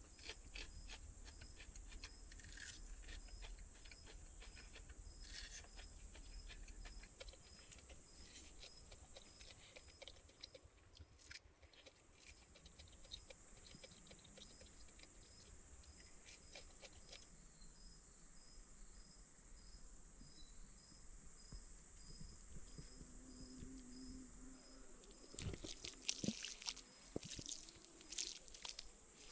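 Insects shrilling in a steady high-pitched drone, with a softer chirp pulsing about twice a second; the drone dips away briefly near the middle. A few sharp clicks and snaps come near the end.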